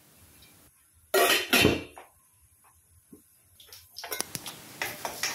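Two short, loud noisy bursts about a second in. From about four seconds in, a metal spatula clatters and scrapes in a steel kadai as mustard seeds, chana dal and urad dal are stirred in hot oil.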